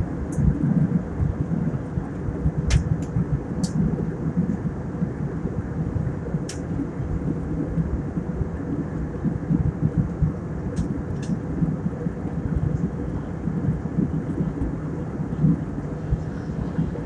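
Steady rumble of an airliner's jet engines and airflow heard inside the passenger cabin in flight, with a faint steady hum and a few light clicks.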